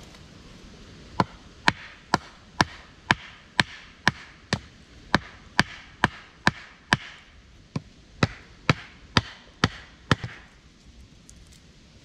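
Repeated sharp strikes of a hand tool in a steady rhythm, about two a second, with a brief pause midway, stopping about ten seconds in.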